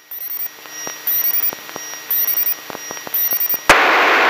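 Aircraft intercom and radio audio feed, mostly quiet, with faint steady electronic tones and scattered clicks. A high-pitched electronic beep comes four times, about once a second. About three and a half seconds in, a sharp click and a loud steady hiss come in as the radio squelch opens.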